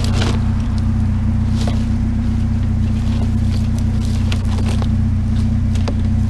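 Truck engine idling steadily, a low even hum, with a few faint light clicks and clinks over it.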